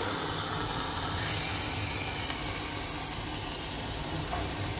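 Steady sizzling hiss of hot saag simmering in a steel pan, just taken off the heat and still steaming.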